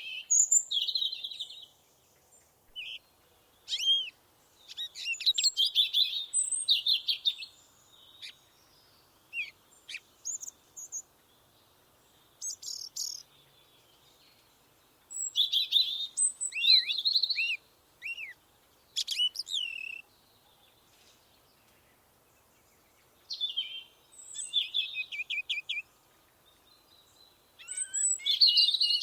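Forest songbirds singing in bursts of rapid trills and high whistled notes, with brief pauses between songs.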